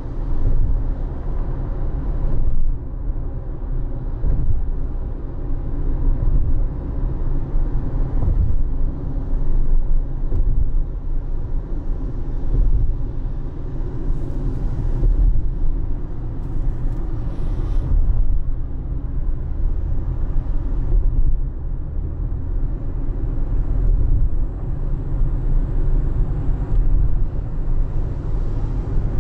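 A car driving, a steady low rumble of engine and road noise that rises and falls a little, with a short hiss about halfway through.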